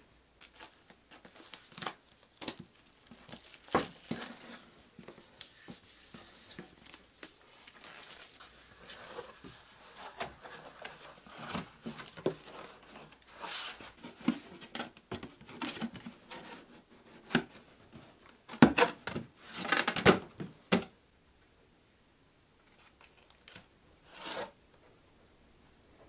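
Corrugated cardboard box being folded into shape by hand: flaps bent, creased and slid against each other, making irregular scraping, rustling and sharp creaking clicks. The loudest run of scrapes comes about two-thirds through, then it goes quiet briefly before one last short scrape.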